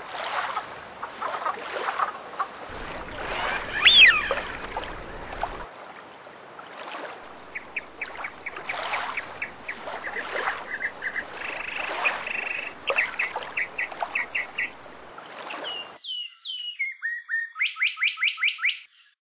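Birds and frogs calling: squawks, chirps and runs of quick repeated calls over a light outdoor hiss. Near the end, after a sudden drop in the background, a clear run of quick rising chirps.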